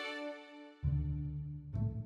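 Background music. A held chord fades away, then deep low notes come in sharply just under a second in, with a new note struck near the end.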